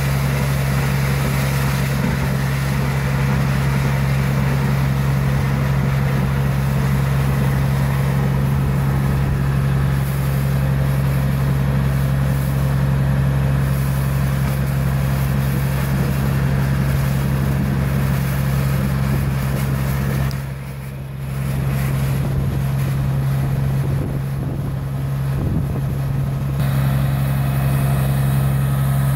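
Truck-mounted water well drilling rig running steadily as it drills a borehole, a constant low engine drone. It dips briefly about two-thirds of the way through.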